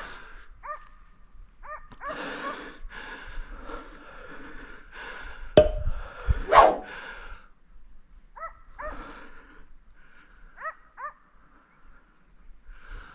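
Dogs barking in rough bursts, with a few short, high yelps, and two loud sharp barks a little past the middle.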